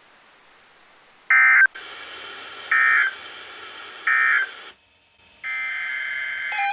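Three short, loud bursts of screeching digital data about a second apart, the NOAA Weather Radio's SAME End-of-Message tones that close an alert, with radio hiss between them. A steady electronic tone begins near the end.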